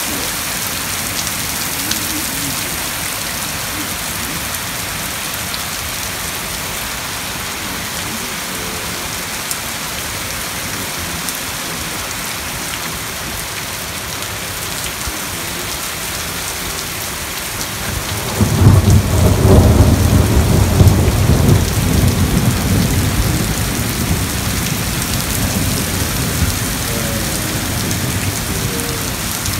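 Steady heavy rain mixed with hail falling on gravel, plants and roofs. About eighteen seconds in, a loud rumble of thunder comes in and slowly fades over several seconds.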